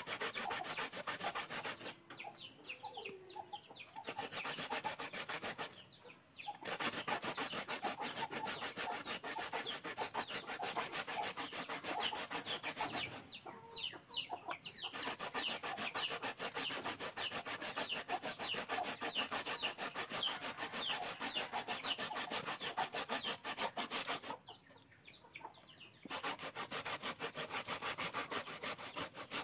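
Peeled cassava being rubbed by hand on a metal grater into a plastic basin: a fast, continuous rasping of repeated strokes, stopping briefly a few times.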